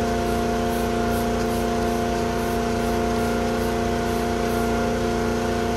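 Trigger spray bottle squirting wheel cleaner onto a wheel and tire in quick faint hisses, about two a second, stopping a little before the end. Under it a loud, steady machine hum with several held tones.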